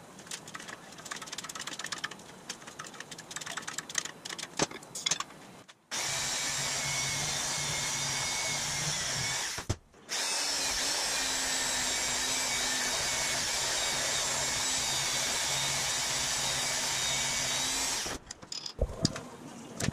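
Portable band saw cutting a metal bar held in a vise. After some clattering and clicks as the work is set up, the saw starts about six seconds in and runs steadily for nearly four seconds. It stops briefly, then runs again for about eight seconds, and more clatter follows.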